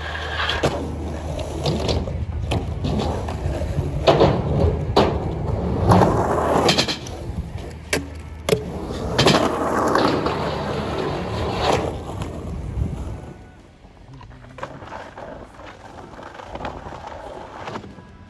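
Skateboard wheels rolling over rough, cracked pavement, with repeated sharp clacks of the board popping, hitting the metal rail and landing. The sound drops quieter about 13 seconds in.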